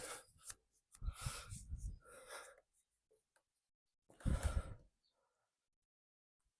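Two bursts of heavy, effortful breathing, about a second in and again about four seconds in, as a new rubber hand grip is forced onto a motorcycle handlebar.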